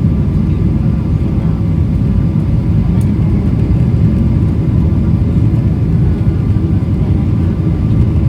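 Airliner cabin noise during the landing approach: a steady low rumble of engines and rushing air, with faint steady tones above it.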